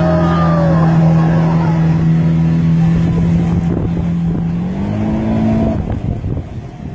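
Speedboat engine running at a steady pitch under water and wind noise, with a brief whoop near the start; about two-thirds through the engine note steps up, then breaks up and drops in level near the end.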